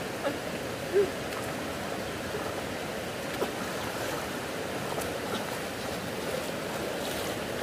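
Stream water rushing steadily, with a brief louder sound about a second in.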